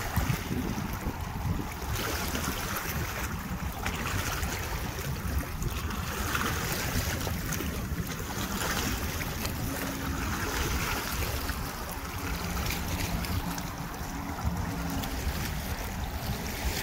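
Small waves washing and splashing over rocks and red mangrove roots at the water's edge, swelling and fading every couple of seconds, with wind buffeting the microphone.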